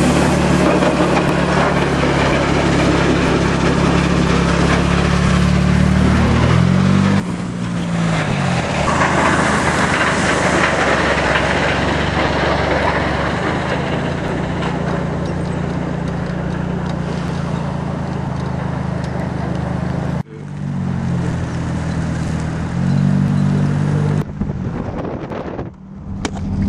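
Car engine running, heard from inside the cabin with road and wind noise. The engine note rises as the car speeds up, about a quarter of the way in and again near the end, and the sound breaks off abruptly twice.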